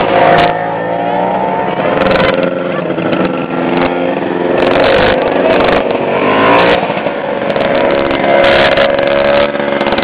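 Several vintage two-stroke snowmobile engines idling together, their pitch rising and falling now and then as throttles are blipped.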